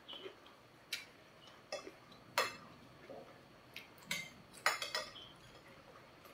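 Metal spoon and fork clinking and scraping against a plate while food is cut and gathered, in a string of irregular sharp clinks, the loudest about two and a half seconds in.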